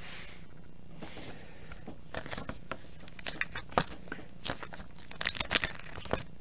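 Trading cards and a clear plastic card sleeve being handled: two short rustles near the start, then a run of light clicks and crinkling from about two seconds in.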